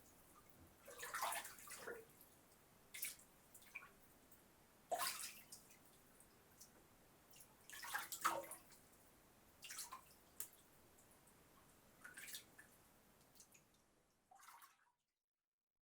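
Water splashing and dripping as a person bathes, in separate scattered splashes a second or two apart that grow fainter, then stop about a second before the end.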